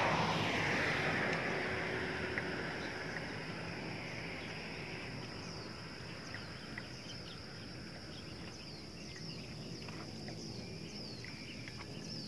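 Outdoor hillside ambience: wind rumbling on the microphone eases off over the first few seconds, leaving a steady high insect drone with many short, high, falling chirps.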